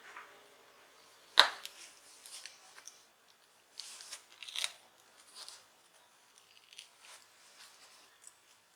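Plastic guitar pick working a smartphone's glued back cover loose: a sharp click about a second and a half in, then scattered short scraping and crackling sounds as the cover's adhesive and edge clips give.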